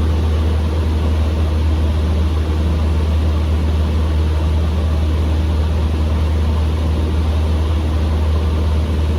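Cessna 150M's Continental O-200 four-cylinder engine and propeller running steadily, a constant low drone with no change in power.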